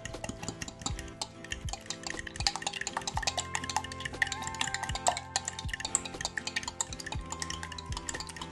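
A fork whisks a thin egg-and-cream custard mixture in a glass measuring jug, its tines clicking rapidly against the glass with a light liquid slosh.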